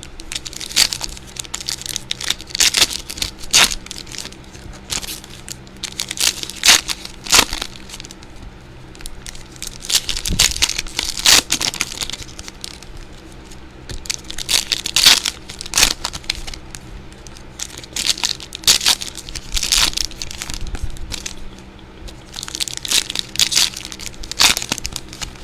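Trading-card pack wrappers being torn open and crinkled by hand, in irregular clusters of sharp crackles.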